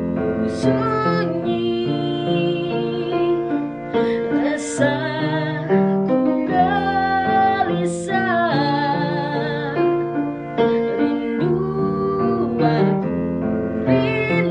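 Slow song: a woman singing over piano accompaniment.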